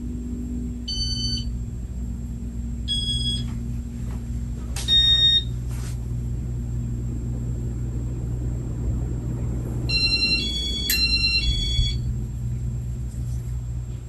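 Casablanca Nouvelle ceiling fan running steadily, its motor and turning blades giving a low hum. Over it come several short, high electronic beeps: single ones about one, three and five seconds in (the last the loudest), then a quick run of beeps at changing pitches near the end.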